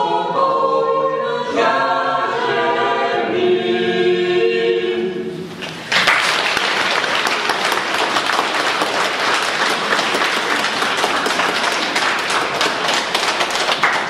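Mixed choir of women's and men's voices singing a Christmas carol unaccompanied, ending on a held chord that fades about five seconds in. About a second later the audience breaks into steady applause that continues.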